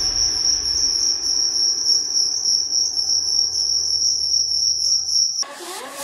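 Black two-spotted field cricket stridulating: a steady, shrill trill that cuts off suddenly about five seconds in, followed by a brief rising electronic swoosh.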